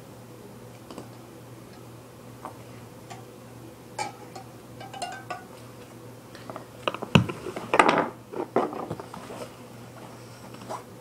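Small homemade metal tool clicking and clinking against a BMX wheel's valve and rim as it is handled: scattered light clicks, with a louder cluster of knocks and rustling about seven to nine seconds in.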